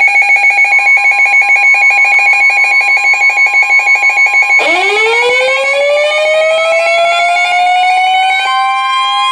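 Electronic emergency alert alarm: a piercing two-tone signal pulsing about five times a second. About four and a half seconds in it gives way to a siren wail that rises slowly in pitch.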